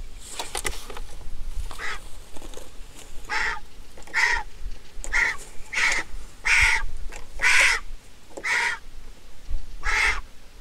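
A bird giving a series of short, harsh calls, about eleven of them, roughly one a second.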